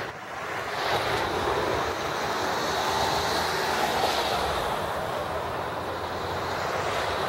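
A car driving past close by on asphalt. Its tyre and engine noise swells about a second in and eases a little in the last few seconds.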